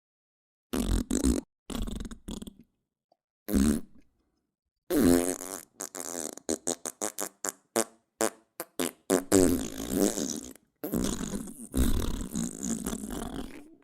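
Fart sound effects played one after another with dead silence between them. Short blasts come about a second in and again near two and three and a half seconds. Then a long string follows: a drawn-out fart, a run of rapid sputtering pops, and several longer wet-sounding rumbling farts.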